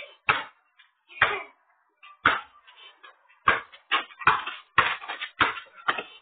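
A ball bouncing on asphalt: a string of about nine thuds, about a second apart at first, then coming faster, about twice a second.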